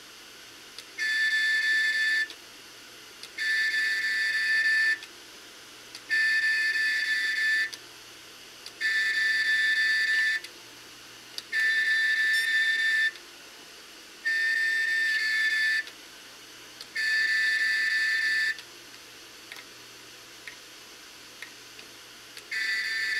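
A failed, opened Seagate 1 TB 7200 RPM SATA hard drive gives off a flute-like whistle in repeated bursts, each about a second and a half long and coming about every two and a half seconds. Seven come in a row, then a pause of about four seconds with a few faint clicks, then an eighth starts near the end.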